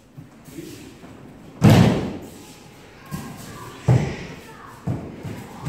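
Aikido practitioners being thrown and landing on tatami mats: several heavy thuds, the loudest about a second and a half in, then a lighter one and two more around four and five seconds.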